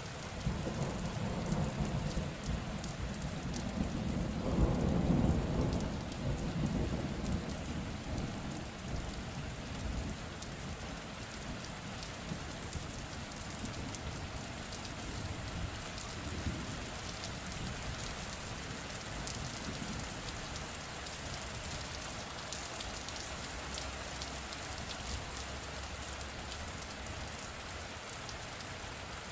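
Steady rainfall with a roll of thunder: the rumble starts right away, swells to its loudest about five seconds in, then dies away over several seconds, leaving the even hiss of rain.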